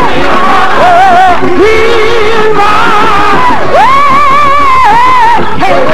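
Gospel singing in church: a woman's voice leads with strong vibrato, sliding between notes and holding one long wavering note about four seconds in, over music and voices beneath.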